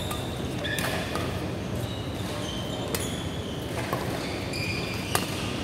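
Badminton rackets striking a shuttlecock in a rally, a few sharp hits a second or two apart, with short squeaks from players' shoes on the court floor, echoing in a large hall.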